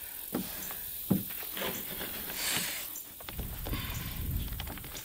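Paper backing of a large vinyl hood decal rustling and crinkling as it is peeled away, with a plastic squeegee pressing the vinyl onto the hood. A few sharp ticks come early, and a low rumble comes a little past halfway.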